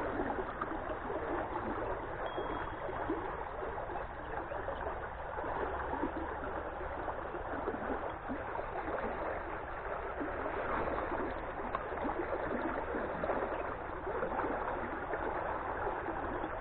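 Steady rushing of water flowing in a shallow stream around a partly submerged pipe.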